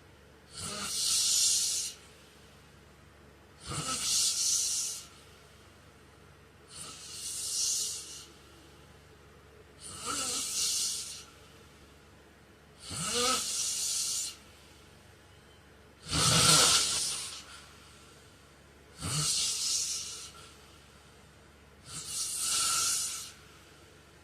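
A sleeping man snoring, eight hissing breaths at an even pace of about one every three seconds, each opening with a short low rattle.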